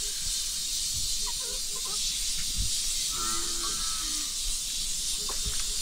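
A steady high hiss, with a few soft knocks and a brief pitched call about three seconds in.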